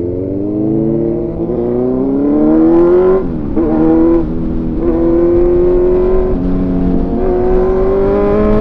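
Motorcycle engine accelerating hard: its pitch climbs for about three seconds, drops at gear changes around the middle, then climbs again and holds at a high, steady note.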